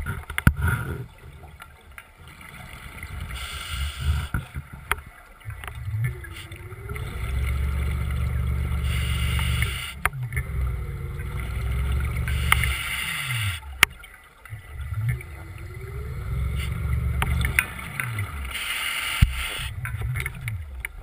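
Scuba diver breathing through a regulator underwater, about three breaths: a hiss on each inhalation, then a low bubbling rumble as the exhaled air escapes. A faint steady whir from the Seacraft underwater scooter's motor runs underneath.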